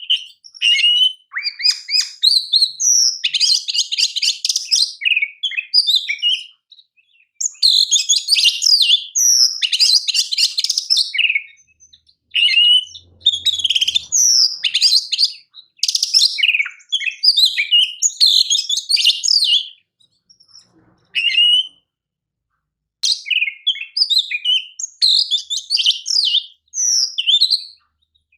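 Oriental magpie-robin (kacer) singing a long, varied song of rapid whistles, chirps and trills. The phrases are broken by short pauses, the longest about three seconds, coming a little past two-thirds of the way through.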